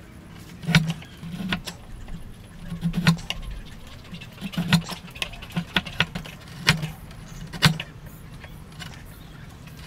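Hand-pushed wood chisel paring and chopping a hardwood dovetail joint: about eight crisp cracks and clicks, irregularly spaced, as the edge bites and chips split away, each with a dull knock through the block and bench.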